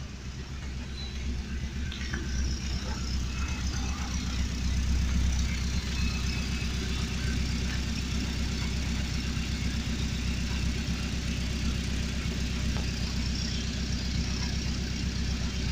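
Car engine idling cold, its exhaust running at the tailpipe with a steady, even low pulsing. The sound gets louder over the first couple of seconds as the tailpipe is neared, then holds steady. The engine is still cold from a wet morning, which is why it smokes on first start.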